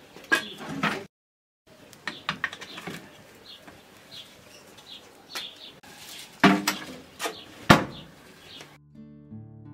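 Embers and wood being poked with a wooden stick in the firebox of a brick wood-burning stove, with small knocks and scrapes, then two loud clanks a second apart as the metal firebox door is shut. Birds chirp faintly throughout, and music comes in near the end.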